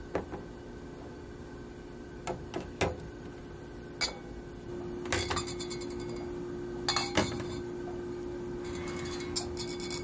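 Glass containers clinking and knocking as they are set down into a clear plastic organizer bin on a stone countertop: a series of short, separate clinks, the loudest a cluster about seven seconds in.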